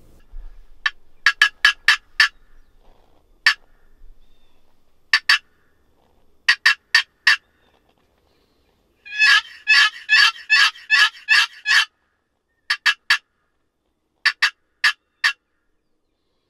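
Turkey call sounding hen yelps: short, sharp notes in strings of a few at a time, with a faster, louder run of raspy cutting notes near the middle.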